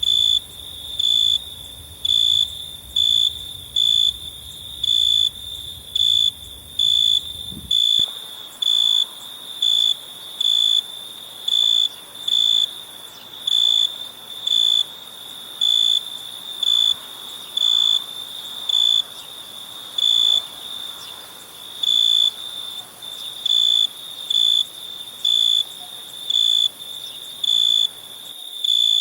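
Cricket chirping in a steady rhythm: short, even, high chirps a little under two a second, over a faint steady high insect hiss. A low background rumble cuts off about eight seconds in.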